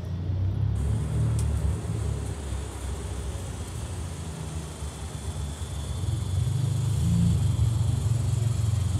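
Ferrari front-engined V12 running at low revs as the car rolls slowly along, a deep steady rumble that grows louder from about six seconds in as it comes close.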